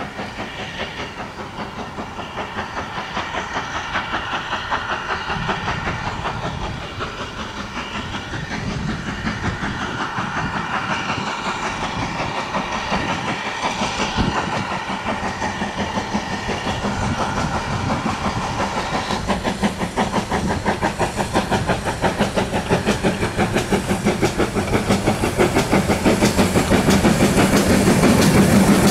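GWR Manor class two-cylinder 4-6-0 steam locomotive 7802 'Bradley Manor' hauling a passenger train under steam, its exhaust beating in a steady rhythm. The beats grow steadily louder as the engine approaches and are loudest near the end.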